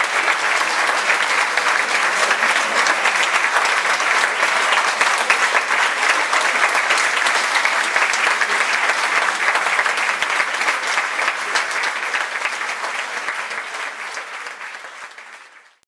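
A concert audience applauding, a dense, steady mass of clapping that fades out near the end.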